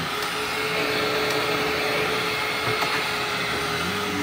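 Hoover WindTunnel Ultra Self-Propelled upright vacuum running steadily while being pushed across the floor with its self-propelled drive engaged, a steady whir with a faint hum.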